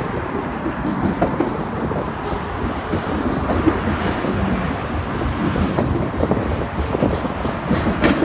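Freight train cars rolling past: a steady rumble of wheels on rail, with frequent clicks and clanks and one louder clank near the end.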